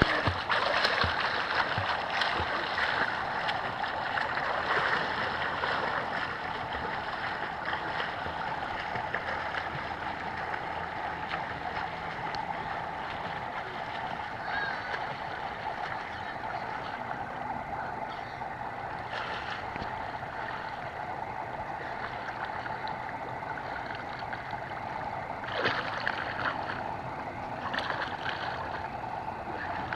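Water splashing from a child swimming laps, backstroke and then breaststroke, a steady wash of splashes that is louder as the swimmer passes close by at the start and again near the end.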